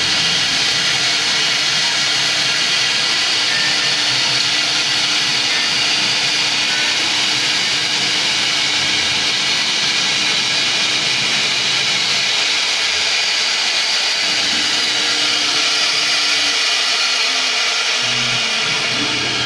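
Four-axis rotary CNC router running, its spindle cutting a wooden sofa leg, heard as a steady, high rushing hiss.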